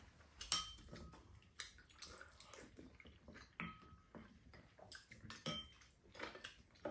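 Spoons clinking and scraping against ceramic bowls of egg soup as two people eat, light scattered clinks, a few ringing briefly, with soft slurps of soup.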